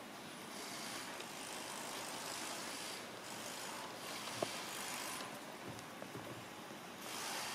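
Steady low background hiss of ambient noise that swells and fades a little, with one small click about four and a half seconds in.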